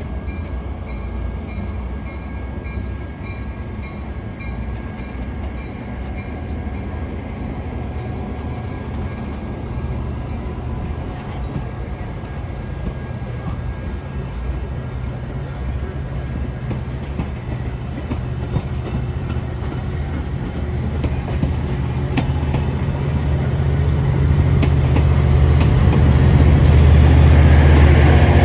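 A train rolling on the rails, the wheels clicking over rail joints over a steady low rumble. It gets louder in the last few seconds as the low engine-like rumble builds.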